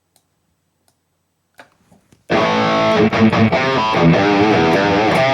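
Quiet with a few faint clicks, then about two seconds in a high-gain distorted electric guitar starts playing through a digital amp modeler's VH4 amp model, a phrase of sustained notes that waver in pitch with bends and vibrato.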